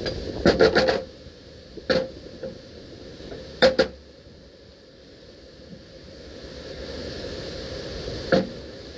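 Sharp metal-on-metal taps and clanks from work on a John Deere backhoe stabilizer hydraulic cylinder: a quick cluster of strikes at the start, single ones around two seconds and near the end, and a close pair a little before four seconds. Wind noise swells in the quieter middle stretch.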